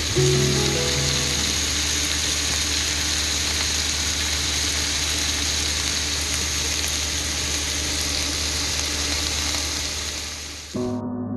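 Steady hiss of rain falling, over a soft music bed; the rain cuts off suddenly near the end, leaving only the music.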